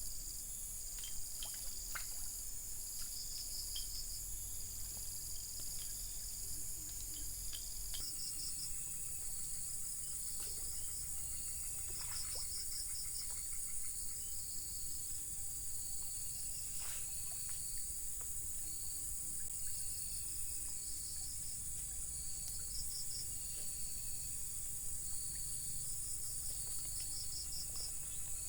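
Insect chorus: a steady high-pitched drone with short trains of chirps repeating every second or two over it, and a few faint clicks. The drone shifts about eight seconds in.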